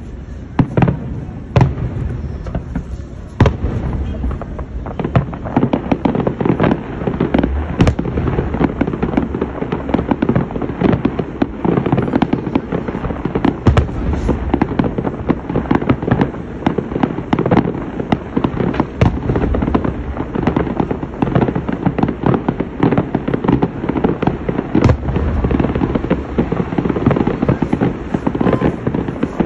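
Aerial fireworks display: a dense, unbroken barrage of shell bursts and crackling, with sharp louder bangs scattered throughout over a steady low rumble.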